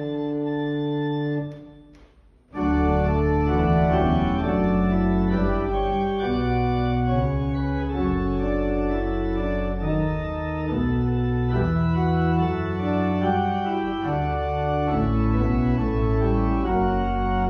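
Church organ playing the closing postlude in slow, held chords. It breaks off for about a second near the start, then comes back in fuller, with a deep pedal bass under the chords.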